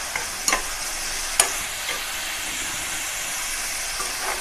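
Chopped onions sizzling in oil in a metal kadhai while a steel ladle stirs them, scraping and knocking against the pan, with two sharper knocks about half a second and a second and a half in.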